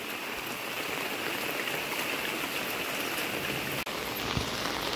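Heavy monsoon rain falling steadily.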